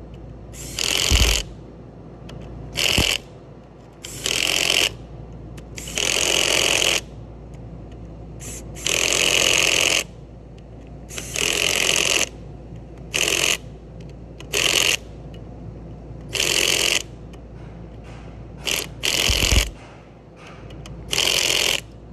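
A power tool run in about a dozen short bursts of half a second to a second each, stopping and starting again every second or two, over a low steady hum.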